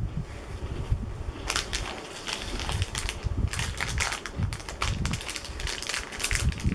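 A plastic Koala's March snack bag crinkling and crackling as it is handled and pulled at to tear it open. The rapid crackles start about a second and a half in.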